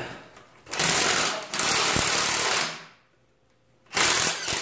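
Cordless impact driver hammering on a bolt at the radiator's bracket in two bursts: a long one of about two seconds with a brief break, then a short one near the end.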